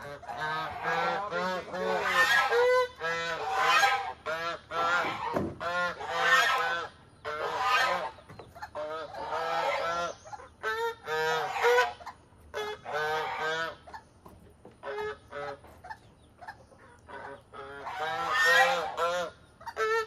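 Domestic geese honking over and over, in clusters of calls with short gaps between them.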